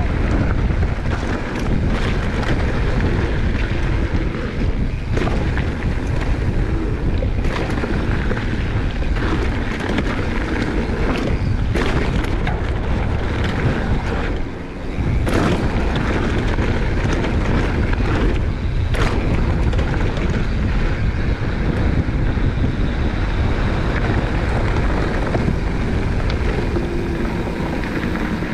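Mountain bike ridden fast down a dirt trail: steady wind rush on the microphone, with sharp knocks and rattles from the bike over bumps every few seconds.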